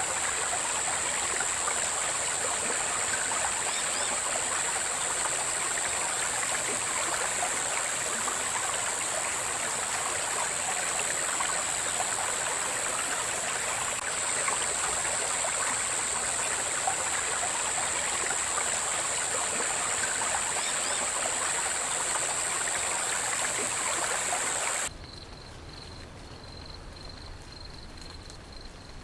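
Running water with a steady, high-pitched insect drone over it. About 25 seconds in this cuts off abruptly to a much quieter scene, where a single insect trills faintly and steadily.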